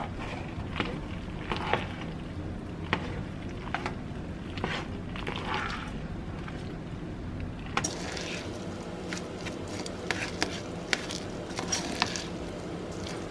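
A spoon stirring macaroni through thick cheese sauce in a nonstick pot. Wet squishing and scraping, with scattered clicks of the spoon against the pot.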